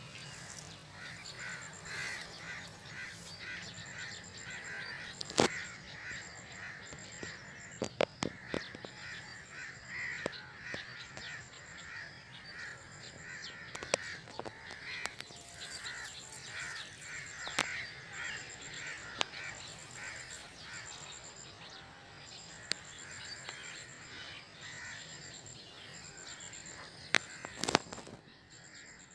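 Birds calling over and over in quick succession, with an insect's high, pulsing trill in short repeated bursts and a few sharp clicks.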